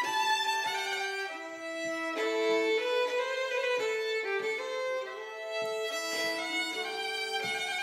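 Two fiddles playing a Swedish folk tune together, with several bowed notes sounding at once and the melody moving on every fraction of a second.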